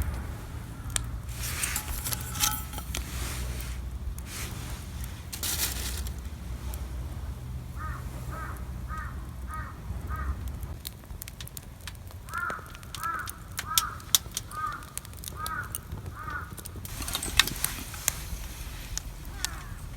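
A crow cawing in two runs of quick, evenly spaced caws, about six a little before the middle and about eight more in the second half. Underneath is a low steady rumble that drops away about halfway through, and a few sharp clicks and crackles.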